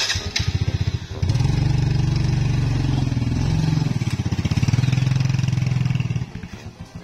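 Small motorbike engine running with fast, even firing pulses. It gets louder about a second in, holds steady, then drops back to a quieter run near the end.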